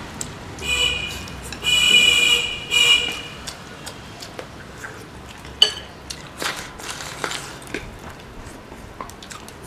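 People eating soup from bowls with chopsticks: three loud, high-pitched slurps in the first three seconds, then scattered light clicks of chopsticks against bowls and quieter chewing.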